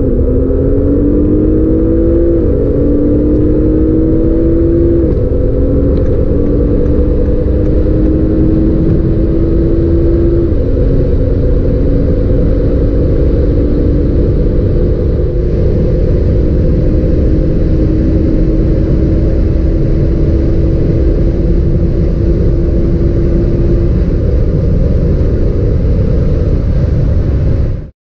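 Audi S8's twin-turbo V8 accelerating hard at full throttle, heard from inside the cabin. The engine note climbs and drops back with three quick upshifts in the first ten seconds or so, then rises slowly for a long stretch over loud road and wind rush. It cuts off suddenly near the end.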